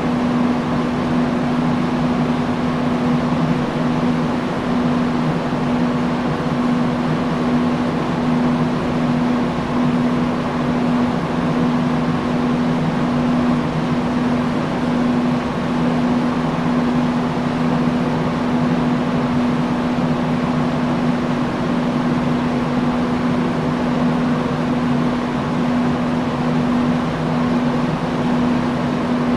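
Industrial fan running steadily: an even rush of moving air with a constant low motor hum beneath it.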